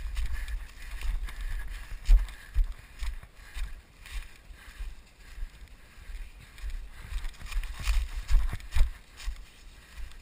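Footsteps through dry leaf litter and grass, with irregular low thumps and rumble from wind and movement on a body-worn action camera's microphone.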